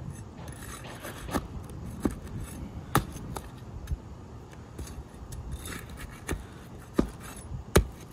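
A metal pry tool scraping and working under asphalt shingles to break the seal, with a scatter of sharp knocks and clicks; the loudest knock comes near the end.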